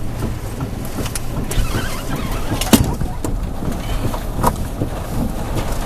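Steady low rumble heard from inside a moving car, with a few sharp knocks, the loudest nearly three seconds in.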